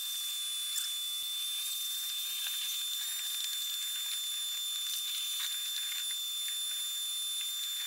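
Vacuum cleaner running steadily, a thin hiss with a high steady whine, sucking broken window glass out of the inside of a car door.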